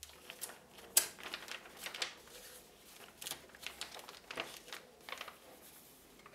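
Faint rustling and light clicks of a glossy magazine being handled, its pages shifted and turned; a sharp tick about a second in is the loudest.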